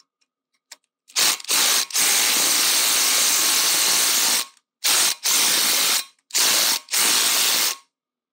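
Cordless impact driver hammering on a T40 Torx brake-disc retaining screw, run in a string of bursts: two short ones, one long one of about two and a half seconds, then several more short ones. The screw is tight and resisting, even after being knocked with a hammer.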